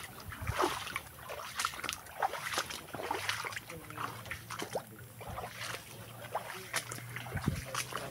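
Footsteps wading through shallow, muddy stream water, a quick irregular series of splashes.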